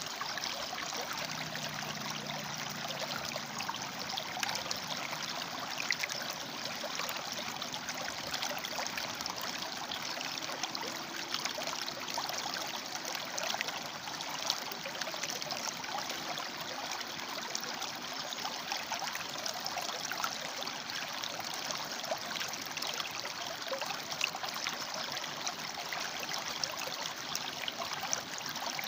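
River water flowing and splashing between rocks: a steady rushing with many small splashes.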